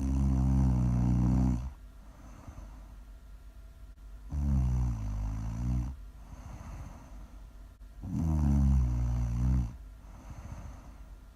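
Loud snoring: three long, low snores about four seconds apart, with quieter breathing between them.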